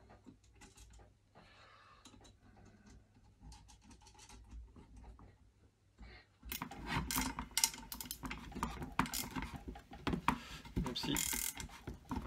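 Metal parts of a Wolfcraft drill stand being handled and fitted together: faint small clicks at first, then from about six seconds in a louder, busy run of metallic clicks, clinks and rubbing.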